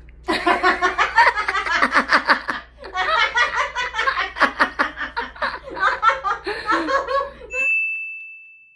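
Hearty laughter in two long bouts of rapid ha-ha pulses. Near the end it cuts to a steady high test-card beep that fades out.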